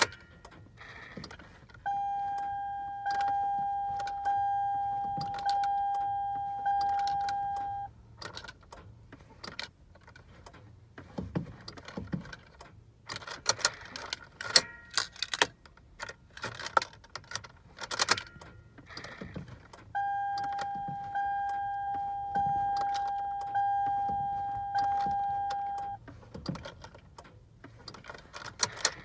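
The van's dashboard warning chime dings in two runs of about five dings each. In between come keys jangling and clicks from the key being worked in the ignition. No engine catches: the 2005 Toyota Sienna will not start.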